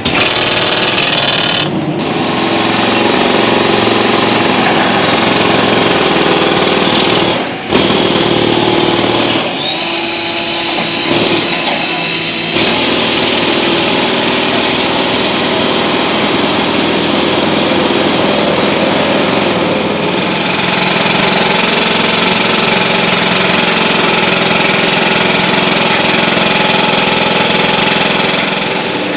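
Construction machinery running steadily, with heavy diesel engine noise and mechanical rattling of the kind made by excavators and breakers. The noise breaks off and changes abruptly a few times.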